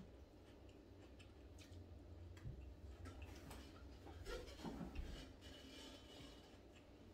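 Faint eating sounds: a person chewing fried fish, with many small, soft mouth clicks. A brief low hum of the voice comes a little after the middle.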